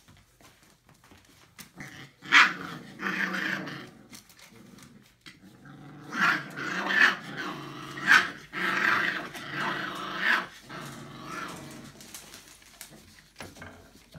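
Entlebucher Mountain Dog puppies, four weeks old, vocalising: a burst about two seconds in, then a longer run of cries from about six to eleven seconds in.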